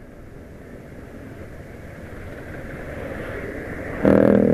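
Motorcycle riding in traffic: low engine and road noise that slowly grows. About four seconds in, a loud, steady engine note comes in, climbing slightly in pitch as the bike pulls along.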